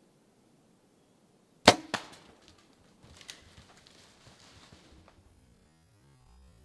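Bow shot: a sharp snap of the released string, a second crack about a quarter second later, then a couple of seconds of rustling and crackling in brush.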